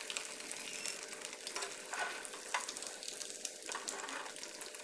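Breaded fried egg sizzling and crackling in hot oil in a frying pan, with a few knocks and scrapes of a metal spatula against the pan.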